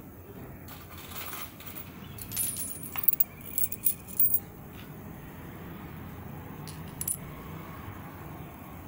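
US coins (quarters, pennies and a gold dollar coin) clinking against each other and scraping on a hard terrazzo floor as a hand pushes them around: a flurry of sharp clinks, one ringing briefly, in the first half, then a couple more clinks later.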